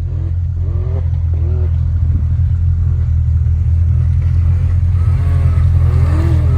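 Polaris RZR Pro R side-by-side's engine running under way over snow: a steady low drone that grows gradually louder, with a higher wavering sound rising and falling about once a second above it.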